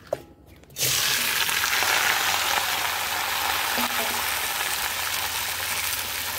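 Boiled green jackfruit and potato pieces dropped into hot oil in a wok and sizzling: a light knock at the start, then a sudden loud hiss about a second in that goes on steadily, easing slightly.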